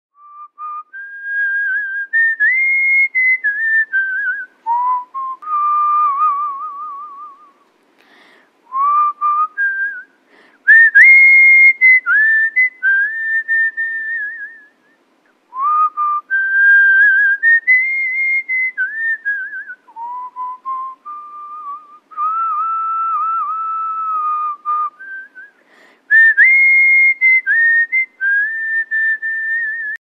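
A person whistling a tune with the lips: clear pure notes that step and glide up and down, with a quick warble about six seconds in. The tune comes in phrases separated by short breaths, and the same opening phrase comes back several times.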